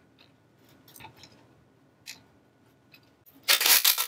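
A few faint clicks of small bolts being handled, then, about three and a half seconds in, a ratchet wrench clicking rapidly and loudly as it runs in the front timing cover bolts on a 948cc A-Series engine.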